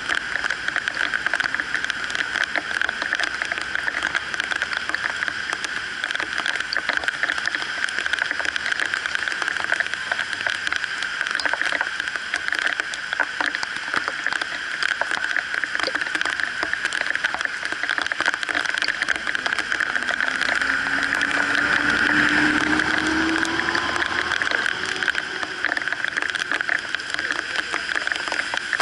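Heavy rain on wet pavement: a steady hiss with many drops tapping close to the microphone. About twenty seconds in, a vehicle passes on the wet road and its engine note rises, swelling the sound for a few seconds.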